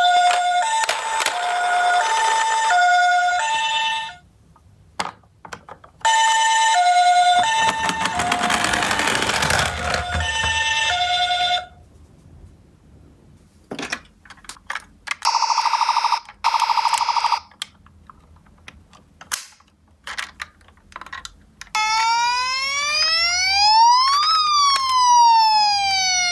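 Battery-powered toy ambulance sirens: a two-tone hi-lo electronic siren plays in two stretches, separated by clicks of handling and button presses, followed by two short electronic buzzes. Near the end a toy police van's electronic wail siren rises and then falls.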